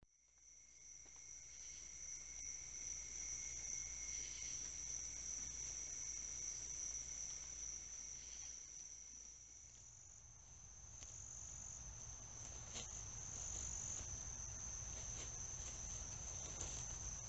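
Crickets singing at night: a steady high-pitched trill, with a second, lower steady tone alongside it for the first four seconds or so and faint scattered ticks in the later part.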